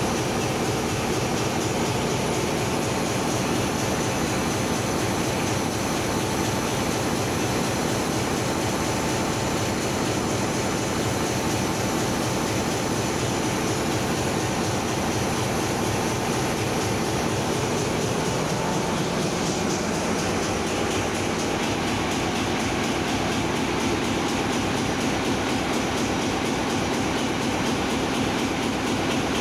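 Steady machinery din of a ship's engine room, a dense running noise with a low hum that shifts slightly about two-thirds of the way through.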